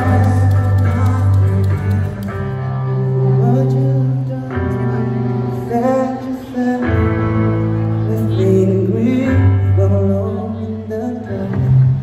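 Live band performance: a man sings a pop-rock melody into a microphone over electric guitar and long, held bass notes that change every couple of seconds.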